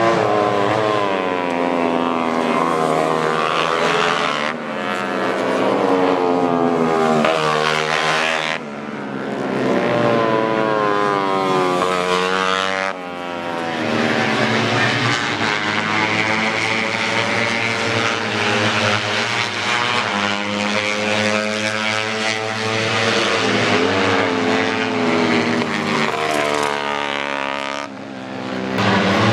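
Tuned 150cc four-stroke underbone racing motorcycles running hard. Engine pitch climbs and then drops sharply several times as the bikes rev and shift up, with several engines heard at once.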